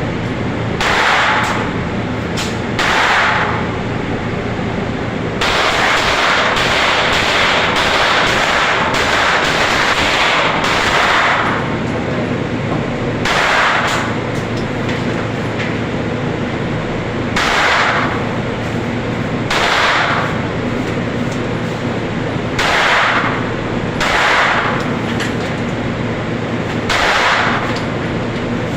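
Gunshots fired one after another, bursts of noise roughly one to three seconds apart with a dense stretch of about six seconds in the middle, over a steady low hum.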